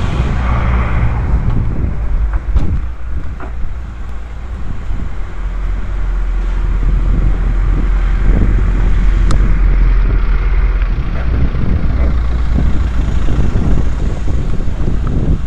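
Steady low rumble of wind buffeting a walking camera's microphone, over street noise, with a few light knocks.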